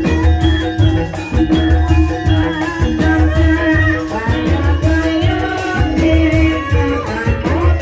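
Live gending ebeg music: a traditional Banyumasan ensemble playing a melody over a deep beat that repeats about once a second, with singing.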